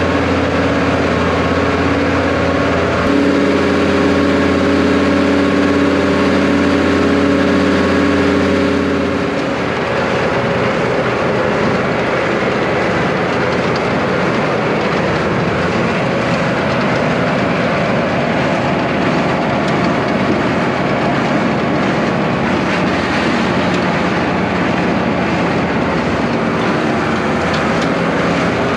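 Tractor engine and silage distributor (désileuse) running, throwing chopped silage out of its side chute. A steady engine drone turns, about nine seconds in, into a rougher, noisier machine sound.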